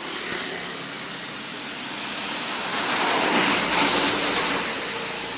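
A vehicle passing close by on the road: tyre and engine noise swelling to a peak three to four seconds in, then fading, with no horn sounding.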